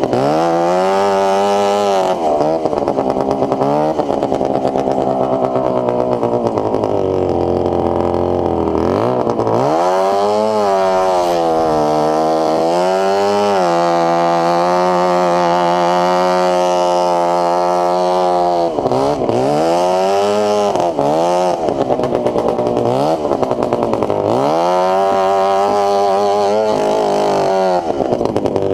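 Loud Bombardier 440cc two-stroke snowmobile engine on a go-kart, revving up and falling back over and over. It holds a steady high speed for a few seconds around the middle.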